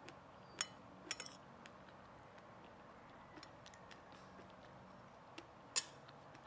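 Cutlery clinking against a dish while eating: a single clink, then a quick run of about three about a second in, and the loudest clink near the end.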